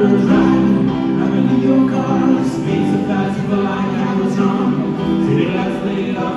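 Music with singing voices; the track changes abruptly at the very end.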